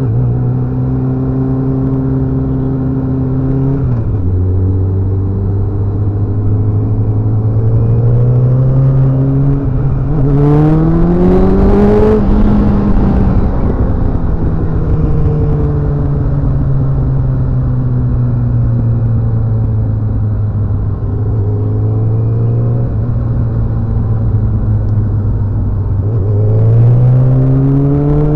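A motorcycle engine running under way. Its pitch drops suddenly about four seconds in, climbs as it speeds up toward the middle, sinks slowly as it eases off, and rises again near the end.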